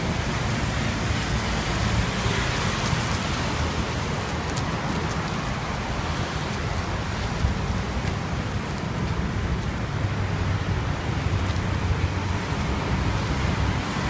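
Steady outdoor background noise: an even hiss over a low rumble, with a few faint ticks.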